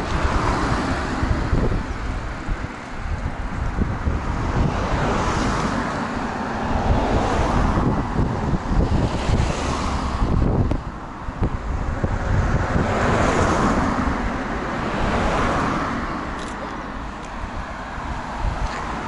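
Cars passing on the road close by, tyre and engine noise swelling and fading a few times, with wind buffeting the microphone.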